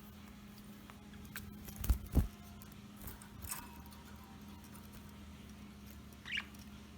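Pet budgerigars bathing: light water patter and small movements, with two loud low thumps about two seconds in and a short budgie chirp near the end.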